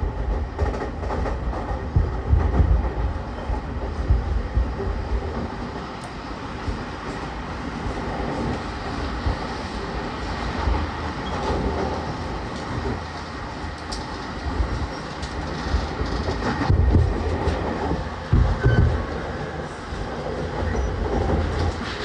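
Running sound inside an E231 series 1000 subseries commuter train motor car, on its original traction equipment, travelling at line speed: a continuous rumble of wheels and traction motors, with occasional heavier thumps as the wheels pass rail joints.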